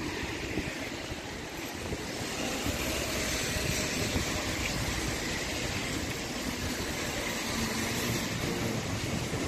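Steady rumble and hiss of road traffic.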